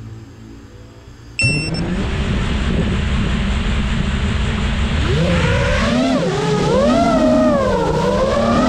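Geprc Mark 5 five-inch FPV quadcopter's brushless motors and propellers spinning up with a sudden loud rush about a second and a half in. Later they give a whine whose pitch rises and falls with the throttle as the quad takes off.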